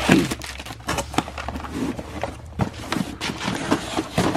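Boxed parts from an axle bearing rebuild kit being dumped out and handled: an irregular run of knocks and clicks as small boxes tumble onto a surface, with packaging rustling between them.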